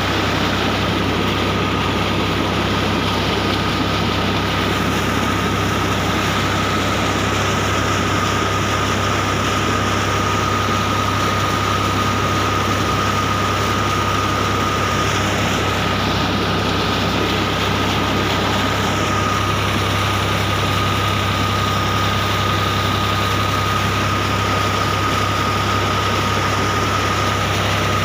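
New Holland 3630 tractor's diesel engine running steadily, driving a PTO water pump, mixed with the rush of water gushing from the pump outlet into the channel. A steady high whine sits over the engine's low hum.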